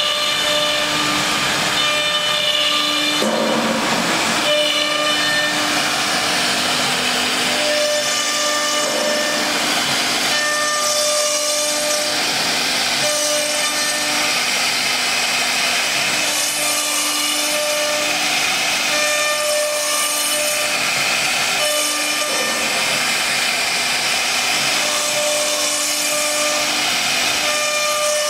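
CNC router spindle running at high speed and cutting a wood panel: a steady cutting noise under a whine that switches on and off every second or few as the machine moves through the carve.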